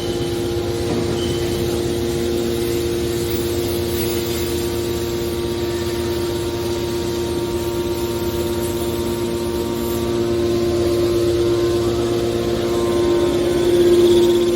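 Hydraulic scrap aluminum baler running, its power unit giving a steady hum with a strong even tone, growing louder in the last few seconds.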